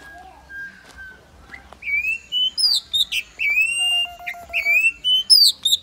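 Caged black-and-white starling whistling loudly, starting about two seconds in: quick phrases of short whistled notes that slide up and down.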